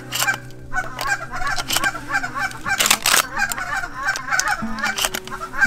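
Many rapid goose-like honking calls in quick succession, with several sharp clicks mixed in.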